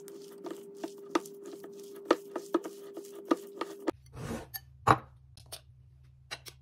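A utensil mixing thick cottage-cheese dough in a glass bowl: irregular taps and clinks against the bowl, about three a second, over a steady hum. About four seconds in the hum stops and only a few scattered taps follow.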